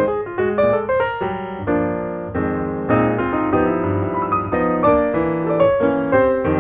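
Background piano music, with a melody of quick notes over sustained chords.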